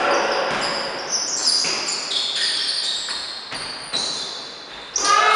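Basketball being dribbled on a hardwood court, with sneakers squeaking sharply as players move. Near the end a loud electronic game buzzer sounds and holds on a steady tone.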